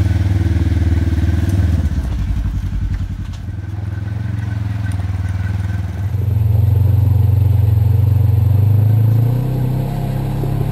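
Polaris RZR side-by-side's engine running as it pulls out of a tunnel onto a dirt trail. About six seconds in, the sound changes to a steadier, louder engine drone heard from on board the machine.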